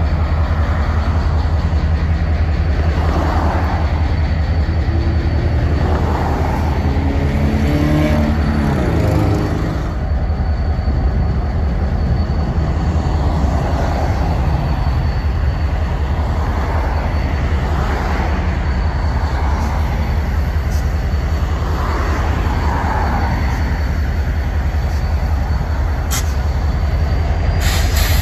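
EMD GP30 locomotive's 567 diesel engine running, its pitch falling as it throttles down about nine seconds in, then running steadily at a lower speed. Road traffic passes over the top of it.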